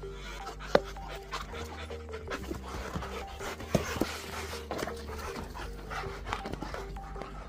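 Rottweilers panting hard as they play and leap at a hanging tug toy, with a few sharp knocks, the loudest just under a second in and around four seconds in. Background music runs underneath.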